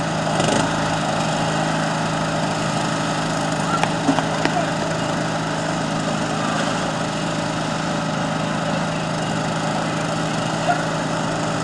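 Riding lawn mower engines, small single- or twin-cylinder mower engines of no more than 13 horsepower, running steadily under racing throttle, with a few brief knocks about four seconds in.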